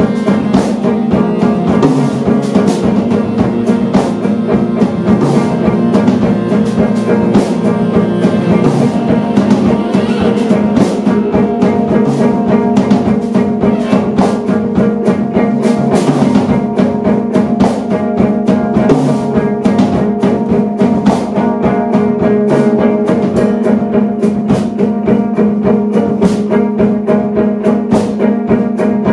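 Jazz quartet of saxophone, cello, electric guitar and drum kit playing live, with busy drumming under sustained notes.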